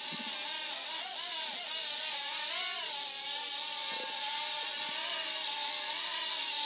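Small remote-control helicopter's electric motor and rotors whining in flight, a buzz like a swarm of bees whose pitch wavers up and down as the throttle changes.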